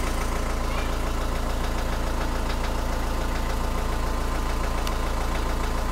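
Renault Trafic's 1.9 dCi four-cylinder diesel idling steadily with a fast, even knock. The owner can't tell whether it is an injector or a worn connecting-rod bearing. The knock weakens but does not go away when the injectors are disconnected one at a time.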